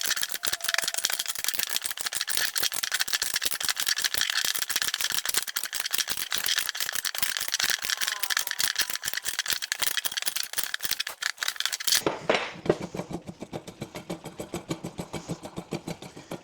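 Rapid metallic clicking from a spanner working the press kit's threaded screw as a polyurethane bush is drawn into a Ford Falcon toe arm. About twelve seconds in, the clicking changes to a slower, more spaced rhythm.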